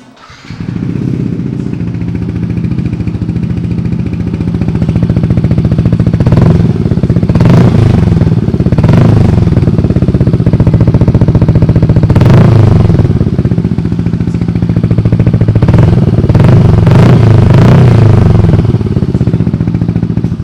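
Yamaha NMAX 155 scooter's single-cylinder four-stroke engine, breathing through an Akrapovič full exhaust system, running at idle and blipped up in revs several times for a sound check. The sound cuts off at the end.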